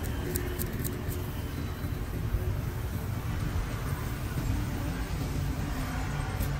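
Steady rumble of road traffic, with a few light clicks in the first second.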